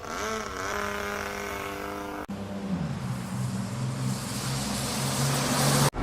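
Car engine sound effect: a steady engine note that cuts off abruptly about two seconds in, followed by a lower engine note under a growing hiss.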